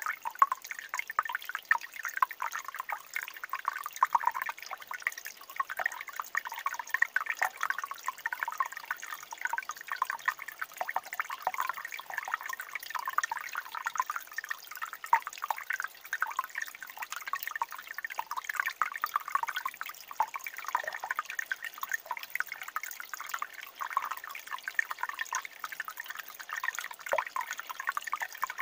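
A shallow mountain stream trickling and babbling over rocks: a steady, busy patter of small splashes with no deep rumble.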